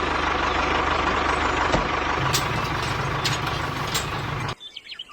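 An engine running steadily with a low, even rhythm, cutting off abruptly about four and a half seconds in.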